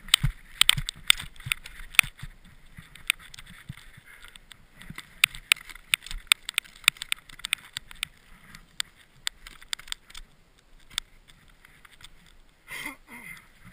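Snowboard binding ratchet straps clicking as a rider straps in, many sharp irregular clicks, some in quick runs, thinning out after about seven seconds, over rustling of gloves and snow.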